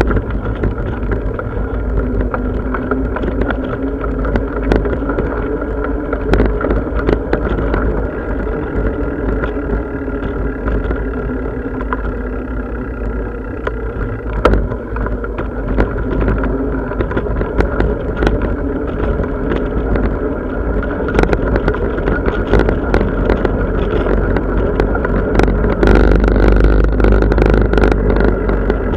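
Bicycle riding noise: a steady low rumble of wind and road with frequent small clicks and rattles, growing louder near the end.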